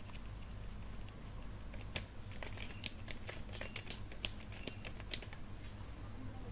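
Typing on a computer keyboard: irregular clicking keystrokes over a low steady hum.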